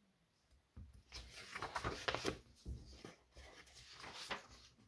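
Sheets of paper being handled and shuffled: an irregular run of soft rustles and light clicks, starting about a second in.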